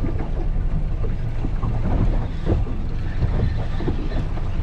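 Strong wind buffeting the microphone on a boat: a steady low rumble with uneven gusty surges.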